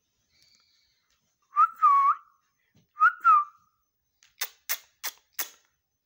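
Two quick whistled calls about a second and a half apart, each a short two-note rise and fall, then four sharp clicks at about three a second.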